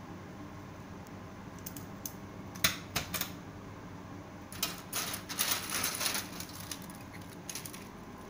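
Thin metal LED backlight strips clicking and clattering against each other as a bundle of them is handled. A sharp clack comes about two and a half seconds in, and a longer rattle follows around five to six seconds in.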